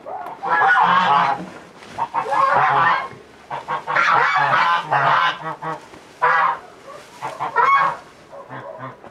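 Geese honking, a run of loud calls coming about once a second, some long and some short.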